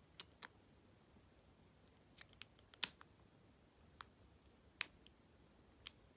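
Pick and tension wrench working the spool pins of a Master Lock 410 lockout padlock: about nine small, sharp clicks at uneven intervals, the loudest near the middle, as spools counter-rotate and set.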